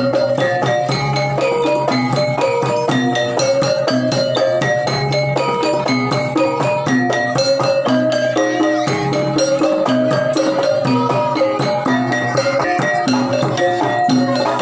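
Javanese gamelan music: struck metallophones play quick, running melodic notes over a steady low gong-like hum, with rattling percussion.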